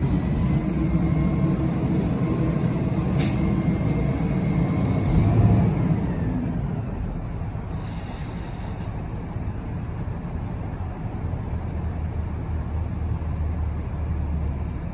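Front-end loader garbage truck's engine running under load, with a whine that falls away, then easing to a steady idle about six seconds in. A short sharp hiss of air sounds about three seconds in.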